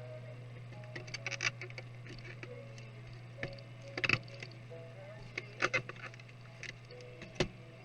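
Scattered sharp clicks and taps of a laptop's plastic and metal parts and tools being handled, over a steady low hum and faint background music.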